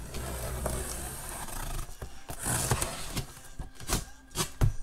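A blade slitting the packing tape along the seam of a large cardboard box: a steady scratchy tearing for about two seconds, then the rustle of cardboard and a few sharp knocks as the flap is pulled open near the end.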